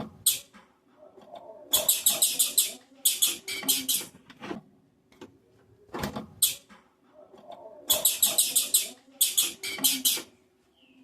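Female blue-black grassquit (tiziu) calling: four quick runs of sharp, very high chip notes, each about a second long, in two pairs. These are the calls that stir up males, with a few single chips and clicks between the runs.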